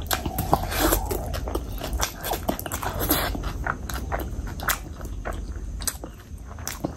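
Close-miked chewing of a mouthful of rice and curry eaten by hand: irregular wet smacks, squelches and mouth clicks.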